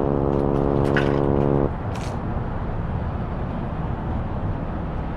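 A held chord of steady tones cuts off about a second and a half in. A steady low rumble follows, with a couple of light clicks.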